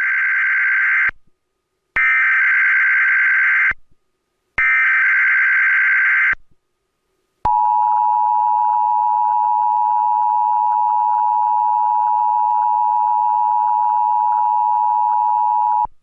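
Emergency Alert System SAME header: the end of one burst of warbling data tones, then two more bursts of about two seconds each, followed about seven seconds in by the EAS two-tone attention signal (853 and 960 Hz together), held steady for about eight seconds and cutting off just before the end. It is the tone sequence of a Required Monthly Test relayed by a cable system.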